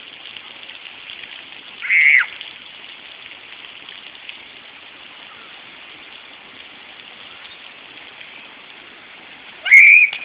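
Steady hiss of lawn sprinklers spraying water across a field. A child's short high-pitched squeal cuts through it twice, about two seconds in and again just before the end.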